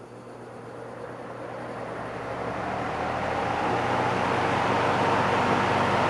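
1969 Markel box fan with its RMR motor, set to reverse on high, coming up to speed. The rushing of air swells over about four seconds, then holds steady with a faint whine on top.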